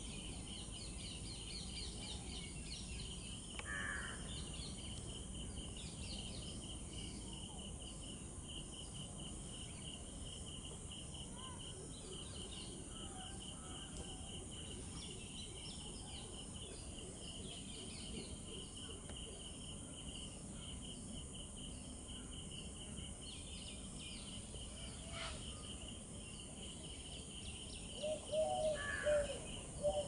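An insect trilling steadily in a fast, even pulse, with scattered faint chirps of small birds. Near the end comes a run of louder, low-pitched bird calls.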